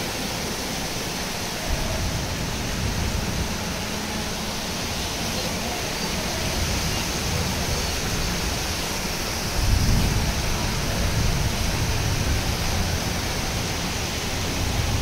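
Heavy rain pouring down in a steady hiss, with a low rumble underneath that swells louder for a few seconds about ten seconds in.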